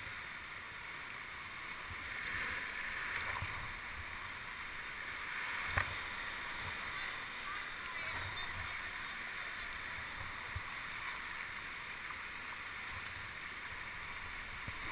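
Steady wash of sea water sloshing and swirling around a kayak, swelling a little about two seconds in. A single sharp knock about six seconds in.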